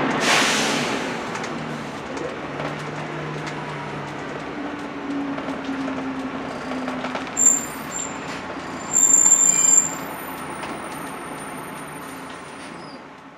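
Volvo B10BLE single-decker bus heard from inside the saloon, its rear-mounted diesel engine running steadily as the bus slows. A sharp air hiss comes right at the start, and high-pitched brake squeals sound about seven and a half seconds in and again about nine seconds in, the second lasting nearly a second.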